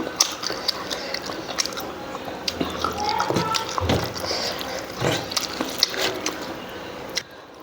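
Close wet chewing and mouth smacking from someone eating rice with goat lung curry: many short clicks and squelches in quick, uneven succession.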